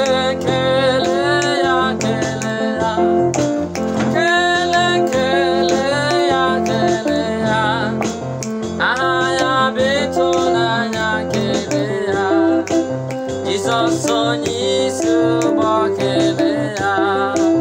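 A man singing a gospel praise song with a wavering, sustained voice over steady instrumental accompaniment of chords and bass notes.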